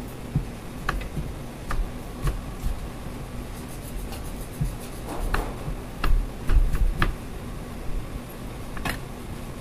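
Scattered light knocks, clicks and handling sounds as marinated chicken pieces are pressed onto a vertical shawarma spit, with a cluster of louder thumps about six to seven seconds in, over a steady fan hum.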